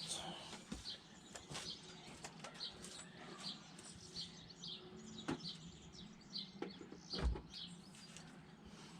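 Faint bird chirps repeating irregularly in the background, with a few scattered clicks and knocks; the loudest is a dull knock about seven seconds in.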